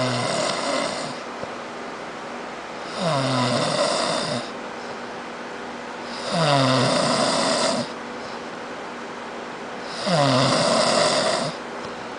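A man snoring heavily: four long snores, one about every three and a half seconds, each opening with a dropping pitch.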